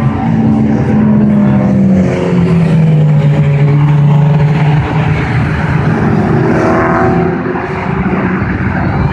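Classic Stock Hatch race cars, small-engined hatchbacks, running hard around the circuit, several engine notes overlapping. The loudest engine note drops a step in pitch about two seconds in, and the sound eases a little near the end.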